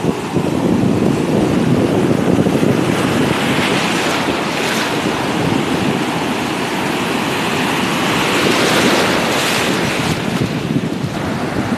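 Ocean surf breaking and washing through the shallows, swelling twice as waves come in.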